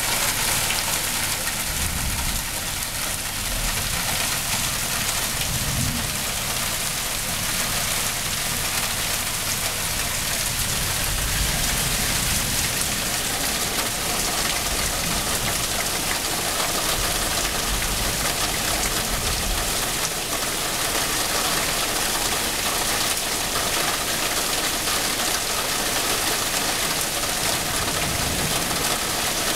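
Heavy rain pouring down steadily, a dense even hiss of drops on the deck and leaves, with a few low rumbles underneath at times.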